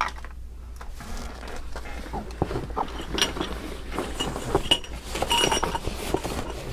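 Gear being handled in and around a backpack: fabric rustling with a run of small knocks and light metallic clinks.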